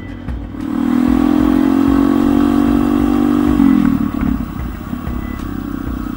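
Motorcycle engine running at a steady cruising speed from the rider's position, its note holding steady and then falling about three and a half seconds in as the throttle eases off, over a constant low road and wind rumble.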